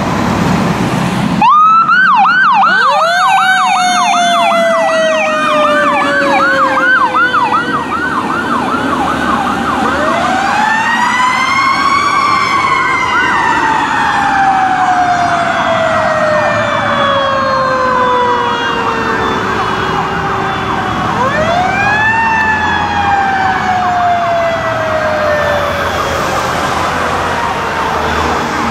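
Fire engine sirens: an electronic siren on a fast yelp starts suddenly and, with it, a Federal Q2B mechanical siren winds up and then slowly coasts down in pitch. The mechanical siren spins up three times, about ten seconds apart.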